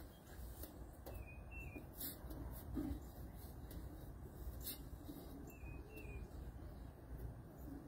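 Birds chirping faintly with short, scattered calls, over a steady low rumble. Two brief sharp clicks come about two seconds in and near the middle.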